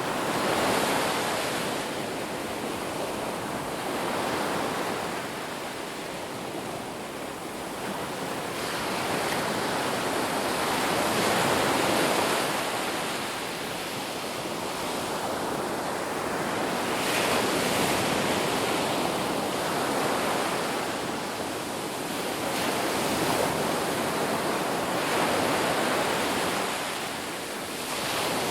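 Ocean surf: waves breaking and washing in, a steady rushing noise that swells and eases every few seconds.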